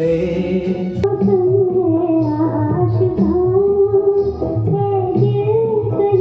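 Music: a song with a sustained, wavering sung melody over instrumental accompaniment.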